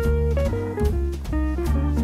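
Background music with a steady beat and a bass line moving note to note.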